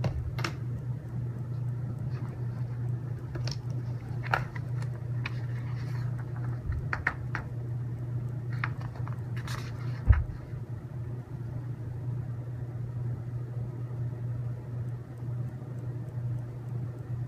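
Scattered light clicks and taps of small robot-kit parts and screws being handled and test-fitted, with one duller thump about ten seconds in. A steady low hum runs underneath.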